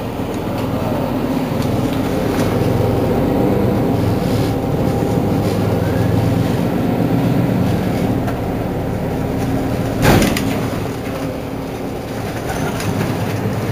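Mercedes-Benz Citaro G C2 articulated city bus's engine idling at a standstill, a steady hum. A single short, loud sound cuts across it about ten seconds in.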